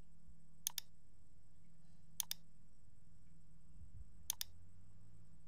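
Computer mouse button clicking: three quick pairs of clicks, spaced about a second and a half apart, over a faint steady low hum.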